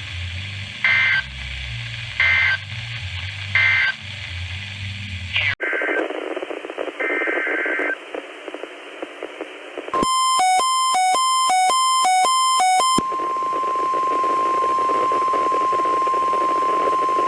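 Emergency Alert System tones on a weather radio feed: three short two-pitched screeching data bursts over radio hiss, then after a cut a few more short data bursts. About ten seconds in come roughly three seconds of rapidly pulsing alert tones, followed by a long steady single-pitch warning tone near 1 kHz, the weather radio warning alarm tone.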